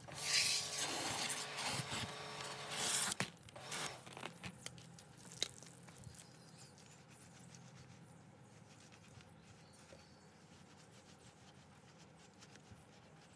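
Wet microfibre wheel-cleaning brushes being handled: a loud rustling, splashy hiss for about three seconds, a few sharp clicks, then quiet with scattered small clicks and drips.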